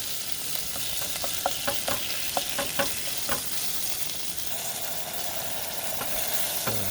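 Pork sizzling in hot sesame oil in a pan, with a utensil clicking against the pan as it is stirred over the first few seconds.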